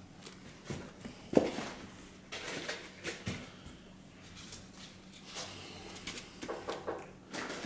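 Unpacking noises as the foam and cardboard packaging of a boxed car head unit is handled: rustling and scattered knocks and bumps. The sharpest knock comes about one and a half seconds in.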